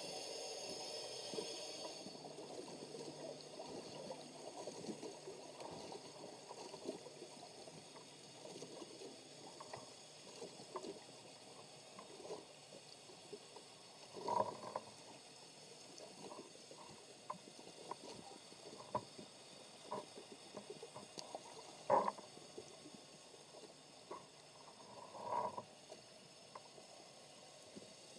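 Underwater ambience heard through a camera's waterproof housing: a steady hum with a high whine that fades out about two seconds in, then scattered faint clicks and taps, with three louder muffled knocks.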